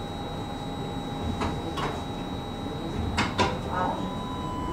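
Inside a standing tram car: a steady electrical hum and whine from the car's equipment, with a few short knocks and squeaks about 1.5 seconds and 3.5 seconds in.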